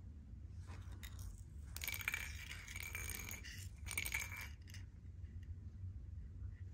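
A small hard object clinking and rolling on a tile floor, twice: about two seconds in for most of a second, and again briefly about four seconds in, each time with a light metallic ring.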